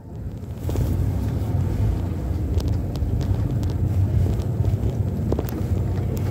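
Car engine and road rumble heard from inside the cabin as the car drives, swelling about a second in and then holding steady, with a few faint clicks.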